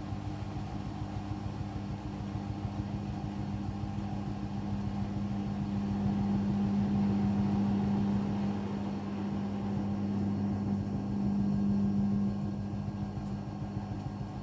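Hoover washing machine running through its final spin with sudslock engaged, the cycle it goes into when it senses too much foam. A steady motor hum that grows louder about six seconds in and eases off about twelve seconds in.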